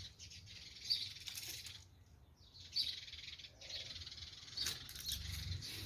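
Birds chirping faintly: a few short, high chirps spaced a second or two apart over a faint low hum.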